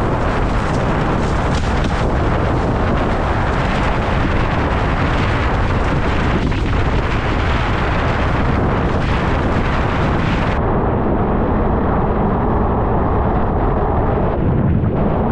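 Heavy wind buffeting on a GoPro Hero 10's microphone, mixed with water rushing and spraying past a slalom windsurf board planing at speed. The noise is steady and loud; about two-thirds of the way through, the hiss turns duller as the high end drops away.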